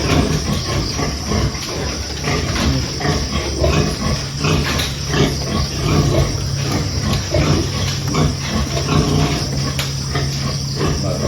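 A sow and her newborn piglets grunting and squealing, a dense run of short calls over a steady low hum.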